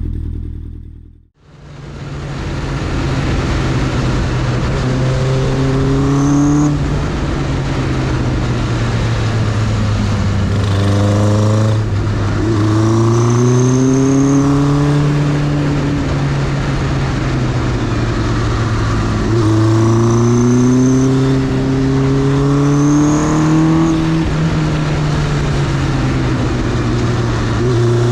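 Honda CB900F's air-cooled inline-four engine pulling through the gears: the note climbs, drops back at each shift and climbs again several times, over steady wind and road noise.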